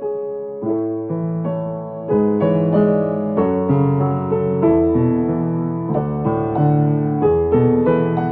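A piano or electric keyboard playing a gentle melody over chords and a bass line. The playing grows fuller and louder about two seconds in.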